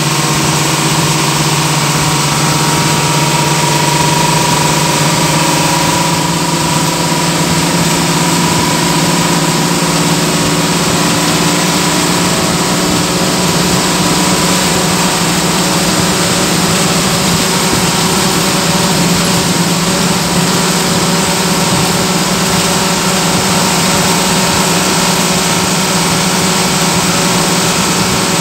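Bus engine running at a steady cruise, heard from inside the cabin: a steady low drone under a constant hiss of road and wind noise.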